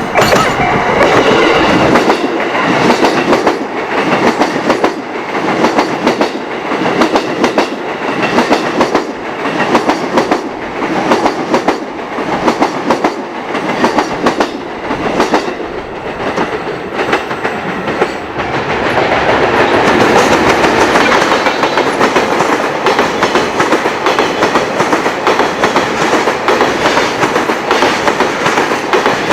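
Long freight train passing close by, its wheels clattering rapidly and continuously over rail joints, with a steadier rushing noise building about two-thirds of the way through.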